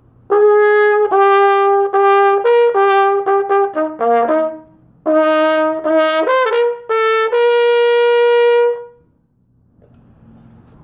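A single brass instrument played solo: two phrases of short, separate notes, the second phrase ending on one long held note, then stopping.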